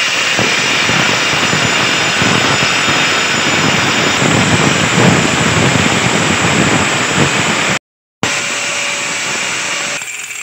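Electric angle grinder with an abrasive cutting disc running under load as it cuts through the neck of an unglazed clay pot, a loud steady grinding hiss. It breaks off for a moment about eight seconds in, then runs on a little quieter.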